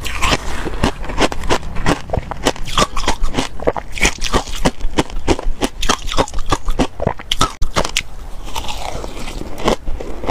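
Close-miked crunching of frozen ice chunks coated in matcha powder: rapid, crackly crunches as the ice is bitten and broken between the teeth, with chewing in between.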